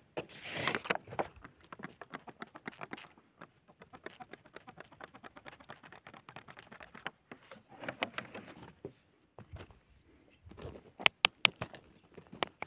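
Crumbly red clay soil crackling and ticking rapidly, with a few louder sharp clicks near the end.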